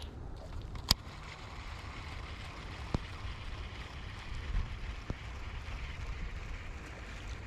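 Wind buffeting the microphone, a steady low rumble with a hiss above it, broken by three sharp clicks: one about a second in, then two fainter ones a couple of seconds apart.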